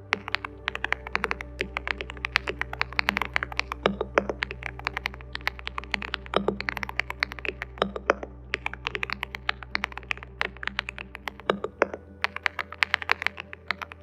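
Fast typing on a ZEN 65 custom 65% mechanical keyboard: a dense stream of sharp key clicks, several a second, with soft background music underneath.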